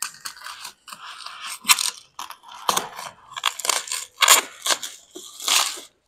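Plastic parcel wrapping being crinkled and pulled open by hand: irregular crackling rustles, with several louder crackles about one to two seconds apart.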